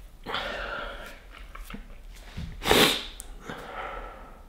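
A man crying, sniffling and breathing through his nose, with one loud sharp sniff a little past halfway.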